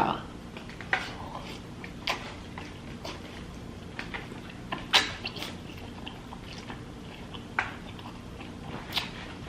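Close-miked eating sounds of a person chewing king crab and lobster from a seafood boil: short mouth clicks and smacks spaced about a second apart, the loudest about five seconds in.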